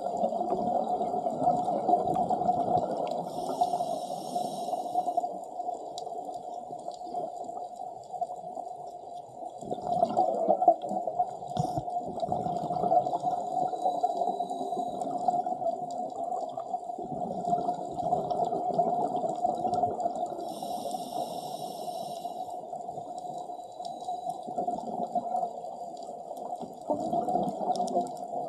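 Scuba regulator exhaust bubbles gurgling steadily underwater as divers breathe, with two brief high hisses, about four seconds in and again about twenty-one seconds in.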